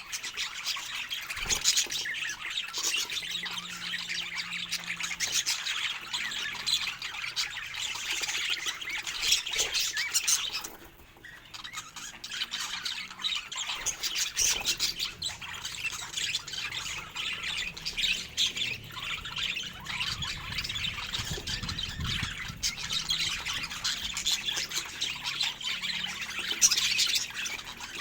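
Budgerigars chattering and squawking, many quick calls overlapping without pause, with a short lull about eleven seconds in.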